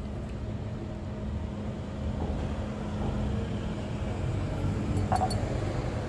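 Steady low background rumble with a faint steady hum, and a few short clicks about five seconds in.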